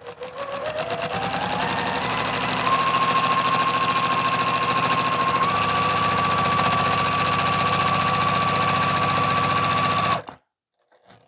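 Juki TL-2010Q sewing machine with a walking foot, stitching through a quilt. Its motor whine rises in pitch over the first couple of seconds as it speeds up, then holds steady at a fast, even stitch rate, and it stops suddenly about ten seconds in.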